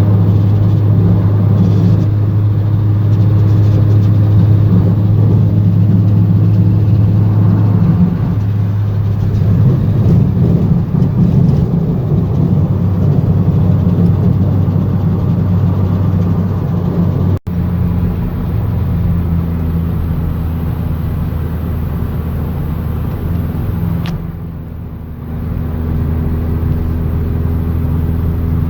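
Car driving at speed: a steady low engine and road drone, broken by a brief drop-out about 17 seconds in and dipping for a moment around 25 seconds.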